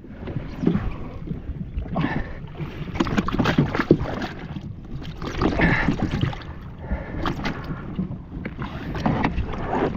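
Water slapping and splashing against a jet ski's hull on the open water, with irregular knocks and wind on the microphone.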